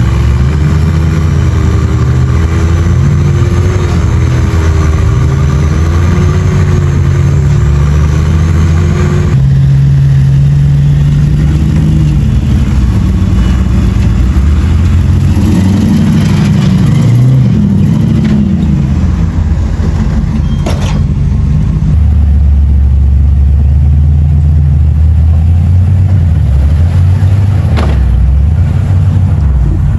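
Off-road rock crawler's engine running under load, its pitch rising and falling as it is revved over the trail, with heavy low rumble and two sharp knocks in the second half.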